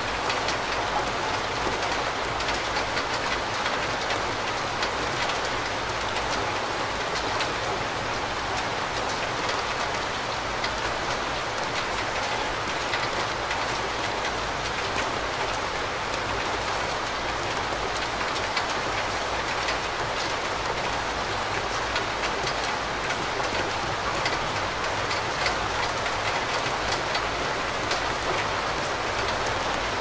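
Steady rain falling, an even dense hiss dotted with countless small drop ticks, over a faint low steady rumble.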